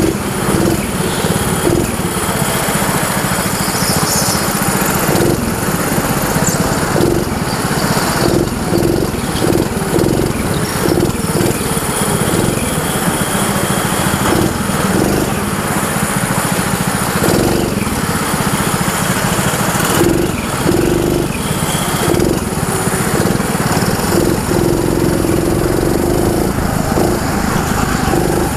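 Junior go-kart's small engine running at speed, heard close up from on board the kart, its note wavering up and down without a break.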